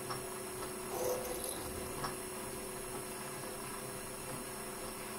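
Optimum TU2004V mini lathe running with its chuck spinning a brass part while a drill in the tailstock is fed in to drill through it. A steady motor hum with a constant whine, and brief louder scrapes about one and two seconds in.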